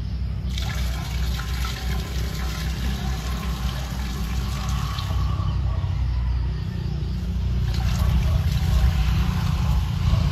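Liquid fertilizer poured from a plastic bottle through a wire-mesh lid into a drum of soaking water: a steady trickling splash that starts about half a second in. A low rumble runs underneath.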